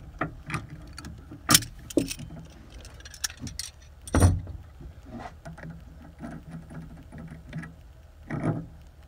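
Hand tools working the top nut of a rear shock absorber mount: scattered metal clicks and clanks from a wrench and locking pliers on the shock shaft and nut, with the loudest clank about four seconds in and a short clatter near the end.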